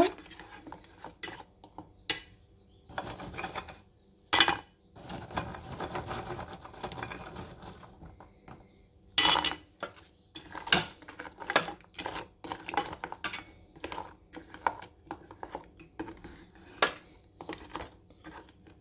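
A metal fork clinking and scraping against a saucepan while biscuits are turned over in warm jam syrup: irregular light taps, with a couple of louder knocks about four and nine seconds in.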